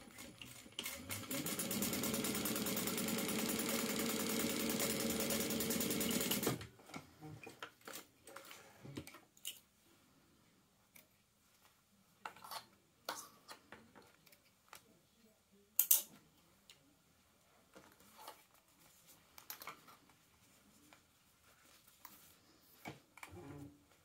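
Sewing machine stitching, building up to a steady run over about a second and stopping abruptly about six seconds in. After it, scattered small clicks and handling sounds as the piece is pulled from the machine and threads are snipped, with one sharp click near the middle.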